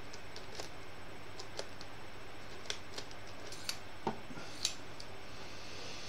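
Scattered small metallic clicks and light scrapes from a dimple pick turning a dimple cylinder lock back to the locked position and being drawn out of the keyway. There are about seven separate clicks, the sharpest near the end.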